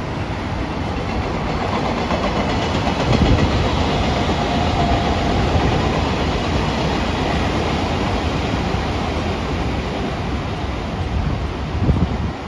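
A train running past, a steady loud rush of wheels on rails with heavier low thumps about three seconds in and near the end.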